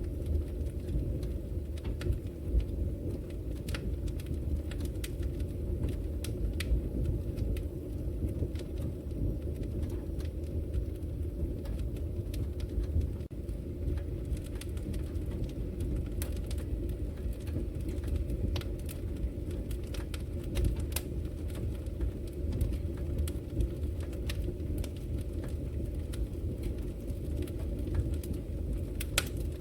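Logs burning in a wood fireplace: a steady low rumble of the fire with irregular sharp crackles and pops scattered throughout.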